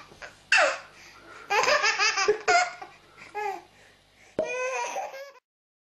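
Young children laughing in several short, high-pitched bursts that stop abruptly near the end.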